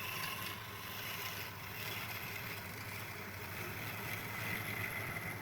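A woodworking power tool running steadily, with a low hum and a faint high whine.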